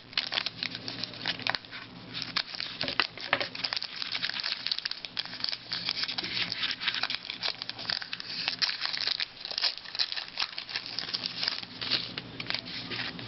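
Foil trading-card pack wrapper being torn open and crinkled, a dense crackle of small clicks throughout, as a new pack of hockey cards is opened.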